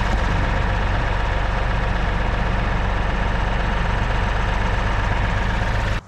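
Kioti compact tractor's diesel engine idling steadily.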